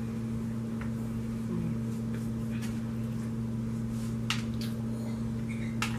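Steady low electrical hum in a small room, with faint mouth and eating clicks as donuts are bitten and chewed. Two of the clicks, in the second half, are sharper than the rest.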